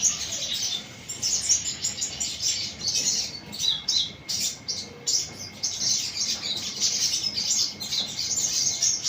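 Sunbird singing: a fast, high twittering of chirps with brief pauses.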